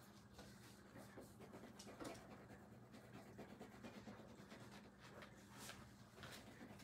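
Near silence: faint scattered rustles and soft taps of papers being handled at a wooden lectern, over a low steady hum.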